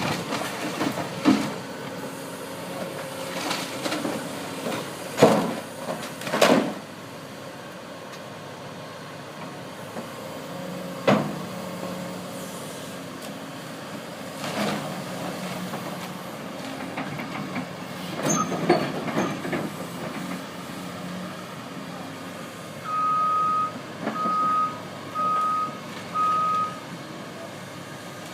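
Heavy demolition equipment at work on a bridge: a diesel engine runs steadily while several loud bangs and crunches of concrete and steel being broken come at irregular intervals. Near the end a backing vehicle gives four reversing beeps, about a second apart.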